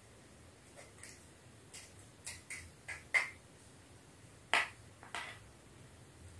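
Crisp pani puri shells cracking as they are poked open with a spoon and fingers: a run of short, sharp cracks and taps, the loudest about three and four and a half seconds in.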